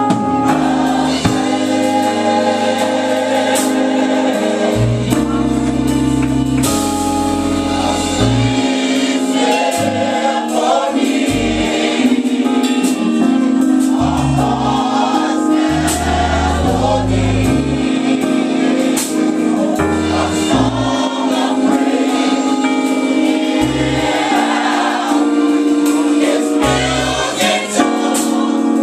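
Gospel choir singing with band accompaniment: bass and drums with cymbal strokes.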